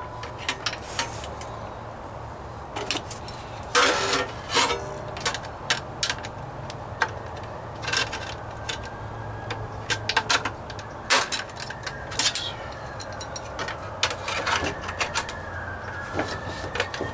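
Hammer tapping on a sheet-steel floor-pan patch: irregular metallic taps and clinks with a few harder strikes about four seconds in, working down a hand-formed bead that was pressed in too deep.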